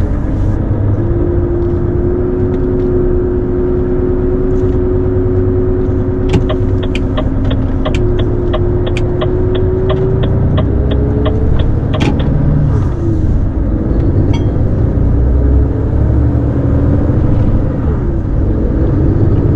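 Truck engine running while driving, heard from inside the cab: a steady low rumble with a held engine tone. From about six seconds in, a regular ticking at about three a second runs for about five seconds and ends with a sharper click.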